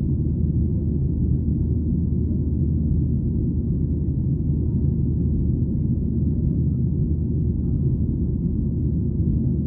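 Steady low cabin rumble inside a Boeing 737-800 in flight: its CFM56-7B engines and the airflow over the fuselage, heard as an even, deep drone with no change.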